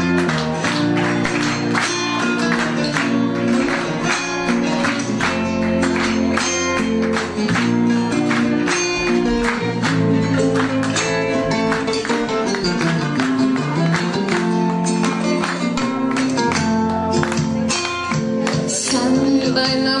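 Argentine folk music: guitar strummed in a steady dance rhythm with handclaps keeping time, an instrumental stretch between sung verses.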